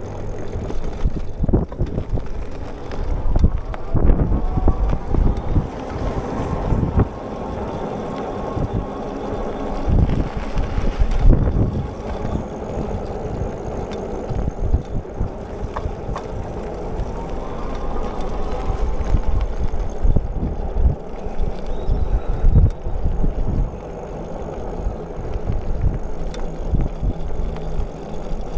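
Wind buffeting the microphone while riding a bicycle along a paved road, with the steady rolling hum of the ride underneath and a faint whine that rises and falls at the start and again about two-thirds through.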